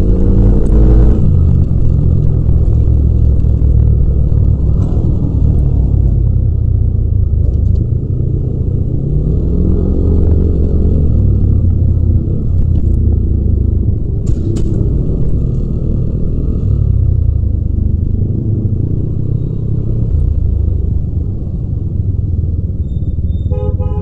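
Yamaha Mio Aerox 155's single-cylinder 155 cc four-stroke scooter engine running while riding slowly through traffic, its pitch rising and falling with the throttle. A short horn toot sounds near the end.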